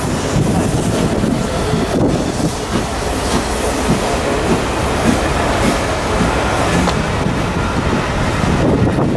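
A rake of maroon West Coast Railways passenger coaches passing close by at speed, steel wheels running steadily along the rails.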